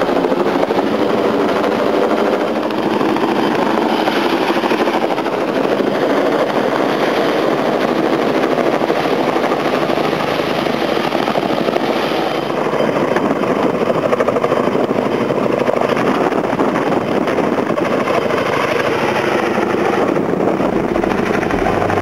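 Tandem-rotor helicopter flying overhead with a load slung on a long line: a loud, steady rotor chop.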